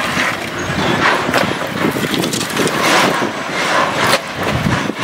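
Pieces of split firewood knocking and clattering against each other, one after another, as they are pulled off a woodpile by hand and thrown aside, over a steady background noise.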